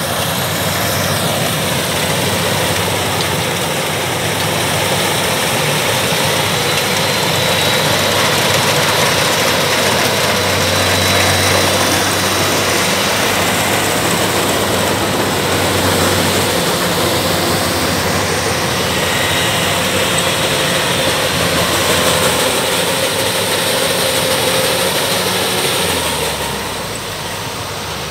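Kubota DC-105X rice combine harvester running under load as it cuts and threshes rice: a steady, dense machine noise from its diesel engine, threshing drum and crawler tracks, with other Kubota combines working close by. The sound eases off a little near the end.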